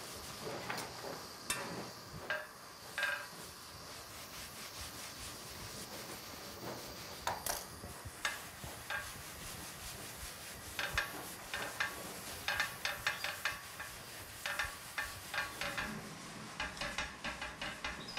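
Kitchen handling noise: a paper towel rubbing a kasra flatbread on a hot flat griddle, over a faint steady hiss. From about halfway on, a quick run of light clicks and taps.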